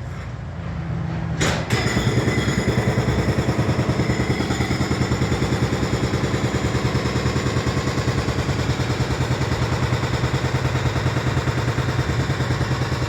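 Heavy demolition machinery pounding in a rapid, even rhythm, starting after a sharp knock about one and a half seconds in.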